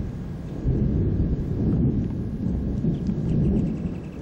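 Rolling thunder rumbling low and long, swelling under a second in and easing off near the end.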